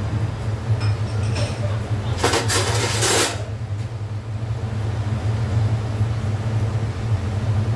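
A steady low rumble runs throughout, with a noisy burst lasting about a second, two seconds in.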